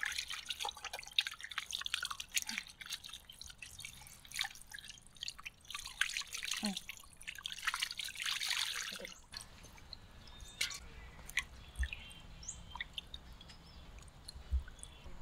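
Water poured over small whole fish in a steel bowl as hands rub and rinse them, splashing and dripping. The pouring stops about nine seconds in, leaving scattered drips and small splashes of hands working the fish in the bowl of water.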